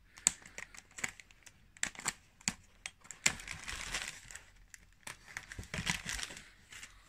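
Thin clear plastic bag crinkling and crackling with scattered sharp clicks as it is handled and a scalpel works the sellotape off it.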